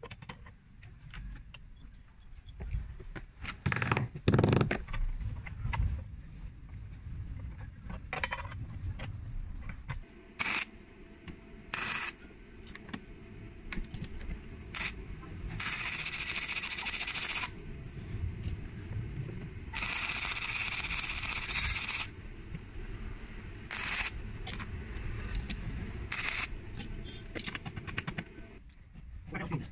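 Steel bar and bearing-mounted homemade tool being handled on a metal bench: scattered metal knocks and clicks, loudest a few seconds in. Around the middle come two steady hissing bursts of about two seconds each.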